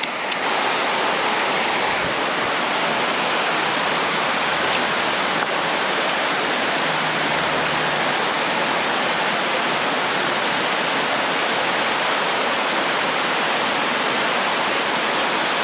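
Mountain creek water running steadily, a constant even rush with no breaks.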